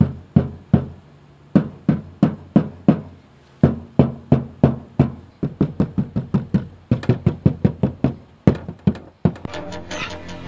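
Hand knocking on the outer skin of a 1996 Ford Mustang's door, a steady series of knocks that quickens about two-thirds of the way through, each knock ringing briefly in the bare metal panel: a test of the door's resonance before sound deadener goes in. Music comes in near the end.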